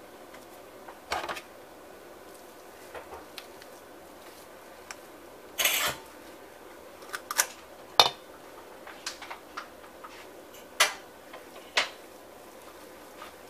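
Metal meatball scoop scraping and knocking against a stainless-steel mixing bowl as ground-meat mixture is scooped out: a scattering of separate sharp clicks and short scrapes, one longer scrape about six seconds in and the loudest click about eight seconds in.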